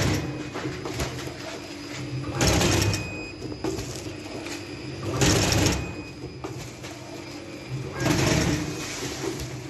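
Small vertical powder packing machine running through its packing cycles: a burst of mechanical noise about every three seconds over a steady motor hum.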